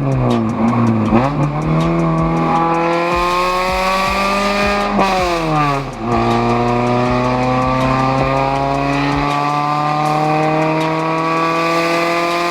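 Acura Integra engine pulling hard under acceleration, its note climbing steadily, dropping sharply at a gear change about six seconds in, then climbing again.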